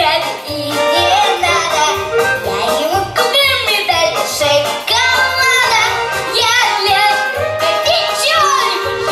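A young girl singing into a microphone over a pop backing track with a bouncing, repeating bass line.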